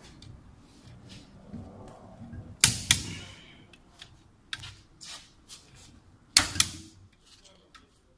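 Click-type torque wrench clicking sharply twice, about two and a half seconds in and again about six and a half seconds in, as crankshaft main bearing cap bolts reach the set torque of 10 kg·m. Lighter ticks and clinks of the tool on the block in between.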